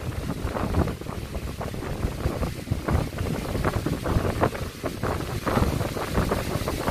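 Typhoon winds gusting hard, buffeting the microphone in uneven, rumbling gusts.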